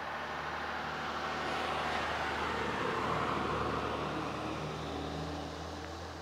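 A passing motor vehicle, its engine and tyre noise swelling to a peak about three seconds in, then fading.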